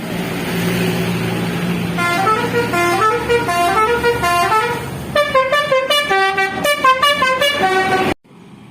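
Bus running with its telolet Basuri multi-tone horn playing a tune of stepped notes that climb and fall, starting about two seconds in. A quicker run of notes follows from about five seconds in, over the bus engine, then the sound cuts off suddenly near the end.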